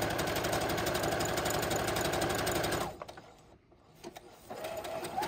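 Brother CS5055 computerized sewing machine stitching a decorative stitch through bias tape, running at a fast, even needle rhythm. It stops about three seconds in, a few small ticks follow, and it starts sewing again a second and a half later.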